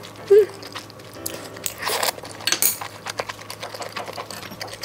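Close-miked eating sounds: utensils clicking against dishes and food being bitten and chewed, with a few louder bursts.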